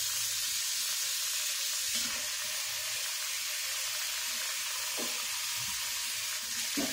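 Kitchen tap running into a stainless steel sink: a steady hiss of water, with a light knock about five seconds in.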